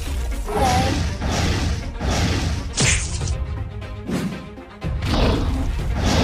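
Background music under cartoon fight sound effects: a series of sudden hits and crashes, the sharpest and brightest about three seconds in.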